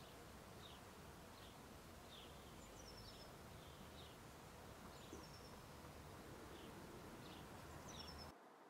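Faint outdoor ambience with small birds giving short, high, falling chirps every second or so. It cuts off abruptly near the end.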